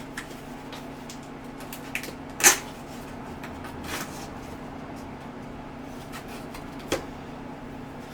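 Packaging being handled while an iron is unboxed: scattered rustles and light knocks, the loudest about two and a half seconds in and another near seven seconds, over a steady low hum.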